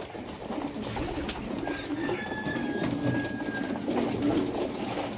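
Pigeons cooing, low overlapping calls with scattered light clicks. A thin, steady high tone sounds for about two seconds in the middle.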